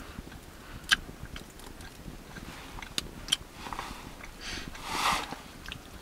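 Small wood cooking fire crackling, with a few sharp pops about one second in and twice around three seconds in. Two soft rushes of wind follow near the end.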